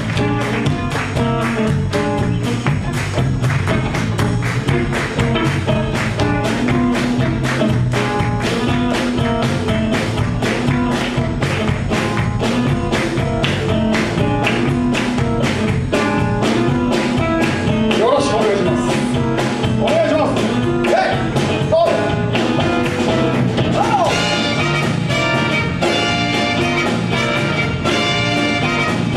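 Live band playing an up-tempo number with a steady, driving drum beat under bass and other instruments.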